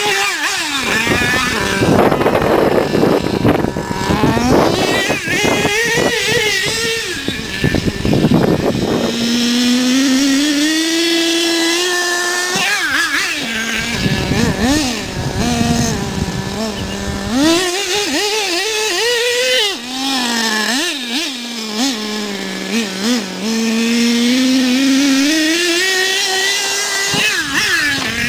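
HPI Savage SS nitro RC monster truck's 4.6 cc two-stroke glow engine revving up and easing off again and again as it drives and jumps, a buzzing whine that rises and falls in pitch.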